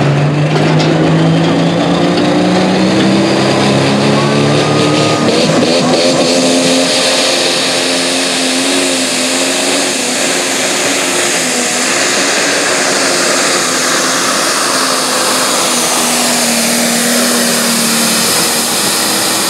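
John Deere 8520 light pro stock pulling tractor's turbocharged diesel engine running flat out under full load as it drags a weight-transfer sled, a loud steady engine note.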